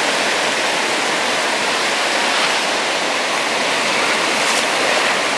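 Steady rushing of small waves breaking along a sandy Lake Michigan beach, a continuous even wash of surf.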